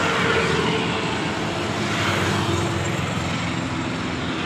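Steady noise of motor vehicles, swelling and fading a few times as traffic passes.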